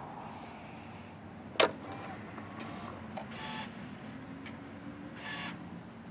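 A 2006 Yamaha R1 that won't start despite a new battery: one sharp click about a second and a half in, then two short electric buzzing whirs about two seconds apart, with no engine catching.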